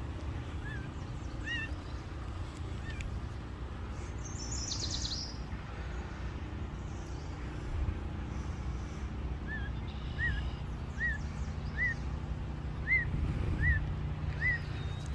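Songbirds calling: a brief high twitter about four seconds in, then a run of about seven short chirps, each rising and falling, spaced under a second apart in the second half, over a steady low rumble.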